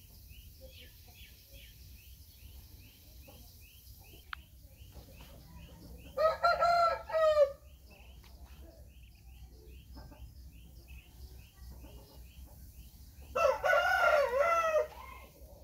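Game rooster crowing twice, each crow lasting about a second and a half, about six seconds apart. Faint high chirps repeat steadily about twice a second in the background.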